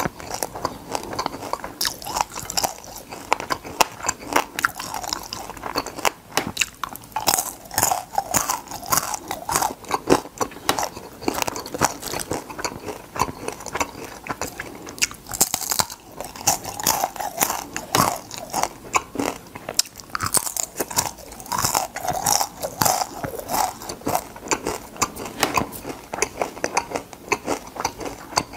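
Close-miked chewing of crispy deep-fried crab: shells and batter crunching and crackling between the teeth in rapid, continuous crunches, with fresh bites every few seconds.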